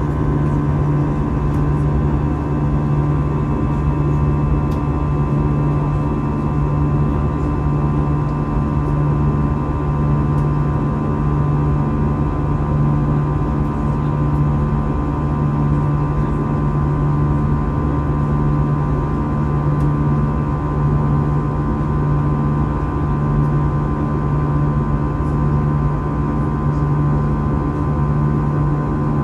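Jet airliner engines running steadily, heard from inside the passenger cabin: a constant low hum with fainter steady tones above it over a wash of noise.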